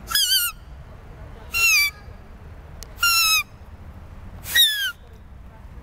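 Thin strip of birch bark blown as a reed at the lips, making four shrill, bird-like squeals about a second and a half apart, each about half a second long with a wavering, slightly falling pitch.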